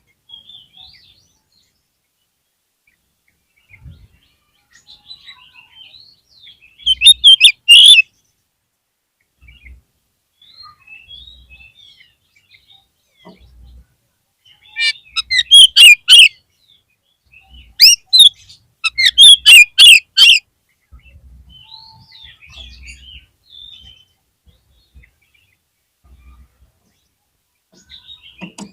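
Oriental magpie-robin (kacer) singing in three loud bursts of rapid, high chirping notes: one about seven seconds in, and two close together around the middle. Fainter scattered chirps come between them.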